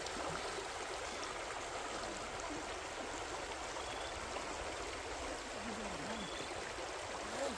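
Shallow rocky stream running over stones: a steady rush of flowing water.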